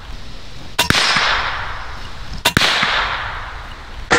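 Shots from a Benjamin Kratos .22 PCP air rifle fired at a .22 long rifle cartridge held in a revolver cylinder: sharp cracks about a second in, at about two and a half seconds and again at the very end, each trailing off in a long hissing echo.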